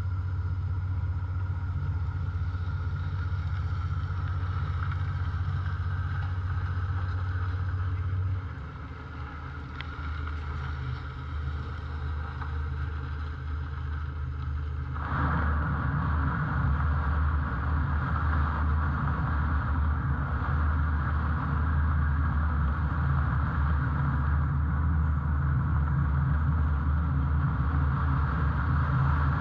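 A steady low engine drone, as heard aboard a running vehicle. It drops abruptly about eight seconds in, then grows louder and fuller about halfway through.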